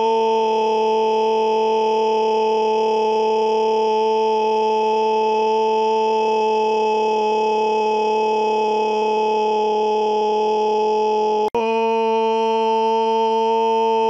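A loud scream held on one steady pitch, cutting out for an instant about eleven and a half seconds in and then carrying on.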